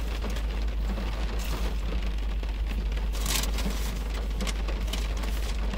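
Rain pattering steadily on the roof and windows of a parked car, heard from inside the cabin, over a steady low rumble. There are a couple of brief louder rustles partway through.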